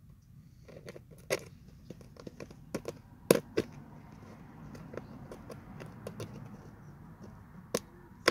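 Multimeter test probes tapping and scraping against a rock specimen: scattered small clicks, the loudest about three seconds in, with no continuity beep sounding.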